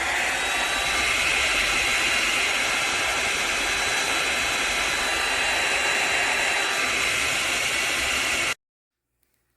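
Hot air styler (rotating blow-dryer brush) running: a steady rush of blown air with a thin high whine, stepping up in loudness at the start and cutting off suddenly near the end.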